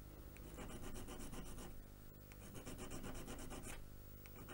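A coarse hand file being worked in short, faint, repeated strokes across the cut end of a model locomotive crank pin, filing it flush with the coupling rod.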